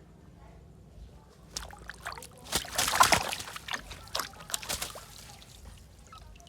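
Water splashing and sloshing in a run of irregular bursts, loudest about three seconds in, as a chicken moves about in the water.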